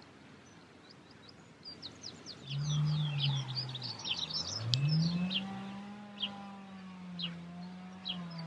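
Small songbirds chirping in a quick run of high notes, thinning to scattered chirps. Under them a low, steady hum dips in pitch about halfway through, then rises and holds.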